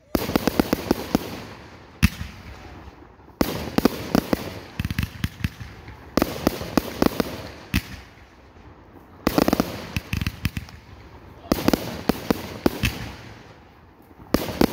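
Aerial fireworks bursting about eight times, each burst a sudden bang followed by a rapid run of sharp crackling pops that fades away.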